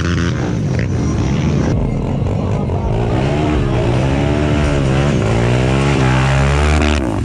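Off-road side-by-side engine revving, its pitch rising and falling several times, then cut off abruptly near the end.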